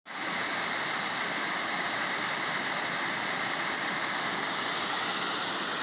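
Creek water rushing over rocks in a small cascade: a steady rushing noise.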